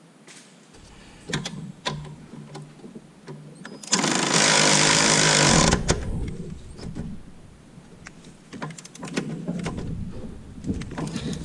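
Cordless power ratchet running for about two seconds a little under halfway through, driving a bolt by the alternator tight once the drive belt has been tensioned. Metal clicks and clatter of the socket and tools come before and after it.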